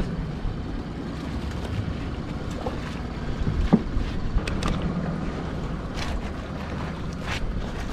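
Wind and sea noise on an open boat, with a steady low rumble and a handful of short knocks and rattles as a rope-netted crab pot is handled on the gunwale.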